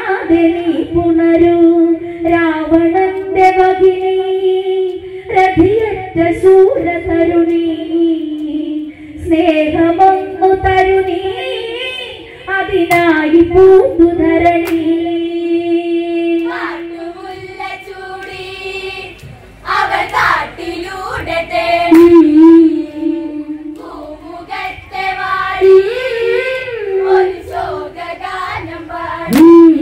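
Women singing a Malayalam Onamkali folk song through a microphone, a lead voice with the group joining in, holding long notes. Sharp hand claps break in now and then.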